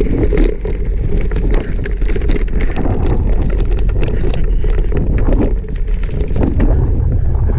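Mountain bike ridden over a rough dirt and stone trail, heard from a camera on the handlebar stem: a steady rumble of wind on the microphone and tyres on the ground, with constant small clicks and knocks from the bike and mount rattling over the bumps.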